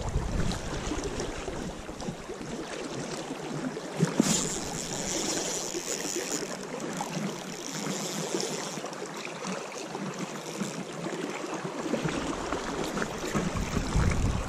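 Flowing river water with wind buffeting the microphone, and a spinning reel being cranked to retrieve the line. A sharp click about four seconds in.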